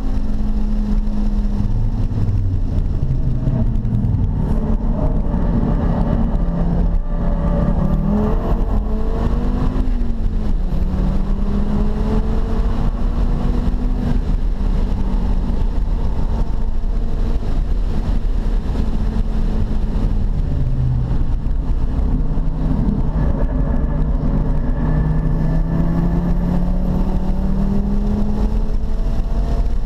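Car engine heard from inside the cabin while lapping a road course. Its pitch climbs under acceleration and falls away several times, over steady road and wind noise.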